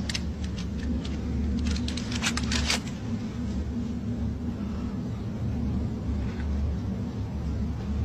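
Steady low rumble, with a cluster of short sharp clicks in the first three seconds.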